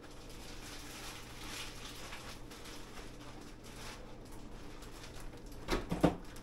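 Rice and flaked tuna and mackerel being stirred and scraped around a nonstick frying pan with a silicone spatula, a soft irregular patter of scrapes, then a couple of louder knocks near the end.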